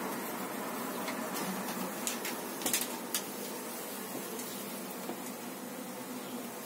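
Honeybees humming steadily at an opened hive, with a short run of light clicks and knocks in the first half.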